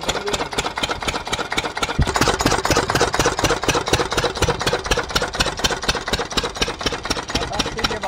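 Field Marshal single-cylinder stationary diesel engine running steadily under load, driving an irrigation water pump, with a fast, even train of firing beats.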